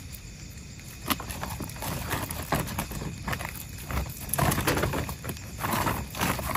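Firewood being handled and stacked: irregular knocks and rustling that start about a second in and grow busier and louder toward the middle.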